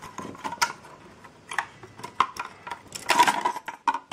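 Plastic case of an external hard drive being forced apart by hand: scattered sharp clicks and cracks as its snap-clips give way, with a dense burst of cracking about three seconds in as the case comes open.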